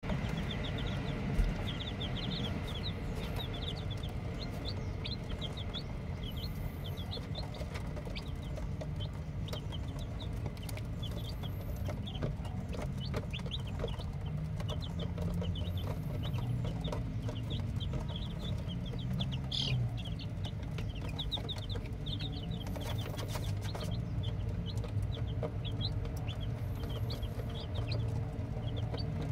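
Newly hatched chicks peeping constantly, many short high cheeps overlapping several times a second, over a steady low rumble, with a single thump about a second and a half in.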